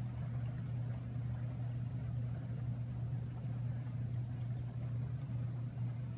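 A steady low mechanical hum, with a few faint small clicks of metal parts being handled.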